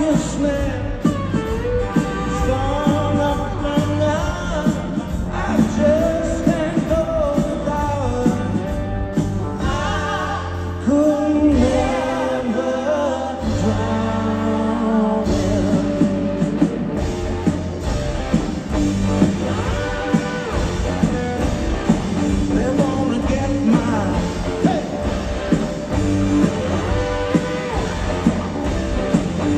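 Live rock band playing loud through a large hall's PA: male lead singing over electric guitars, bass, drums and keyboard. The deepest bass drops away briefly about twelve seconds in.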